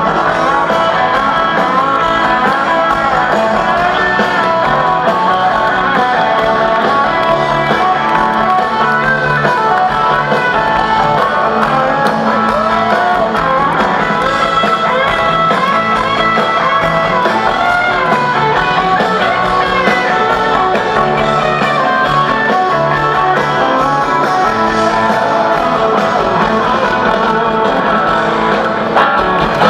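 Live rock-and-roll band playing, with electric guitar to the fore.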